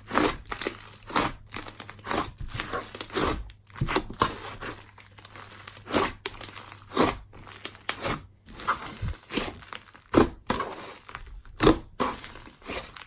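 Dense, stretchy clay slime being squished, poked and stretched by hand, giving irregular sharp pops and crackles, about one or two a second.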